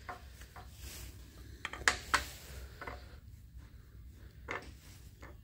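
A few scattered light clicks and taps from small objects being handled, over a faint low hum.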